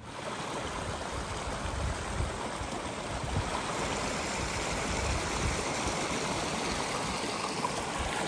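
A stream rushing steadily, cutting in abruptly at the start.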